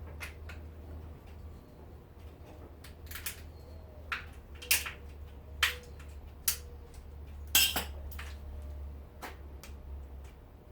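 Sharp metallic clicks and clinks from small metal parts and tools while a microwave turntable motor is pulled apart, scattered irregularly with the loudest about three quarters of the way in. A steady low hum runs underneath.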